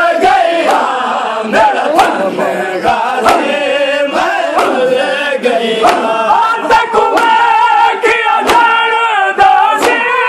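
A crowd of men chanting a Muharram lament in unison while beating their chests in matam. The sharp open-hand slaps land about twice a second in time with the chant.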